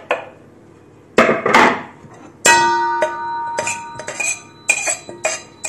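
Stainless steel mixing bowl struck sharply about two and a half seconds in as dishware is tipped against it, the bowl ringing on for a couple of seconds, followed by several lighter clinks. Before it come two short scrapes as boiled potato pieces slide into the bowl.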